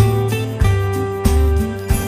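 Background music with a steady beat, a new chord struck about every two-thirds of a second.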